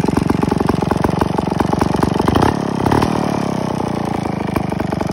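Vintage McCulloch 549 two-man chainsaw's two-stroke engine running at idle with a steady rapid beat; about two and a half seconds in it speeds up briefly, then falls back to idle.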